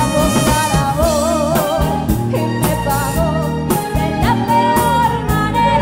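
A woman singing a melody with vibrato into a microphone, backed by a live band with a steady drum beat.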